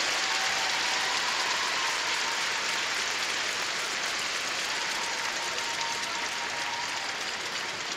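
Large arena audience applauding, slowly dying down.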